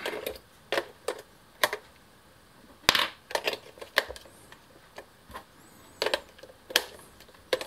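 AA batteries being pressed and fitted into the plastic battery compartment of a Nerf Modulus ECS-10 blaster: scattered sharp clicks and taps, the loudest about three seconds in.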